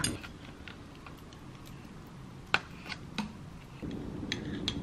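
A metal spoon clinking and scraping against a small glass cup and a ceramic bowl while yogurt and powder are scooped, a few sparse light clicks. About four seconds in, a steady low hum starts.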